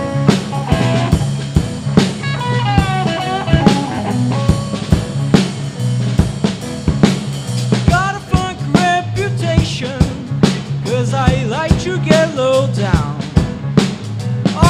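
Live blues band playing an instrumental passage: a guitar lead with bent notes over a steady bass line and drum kit.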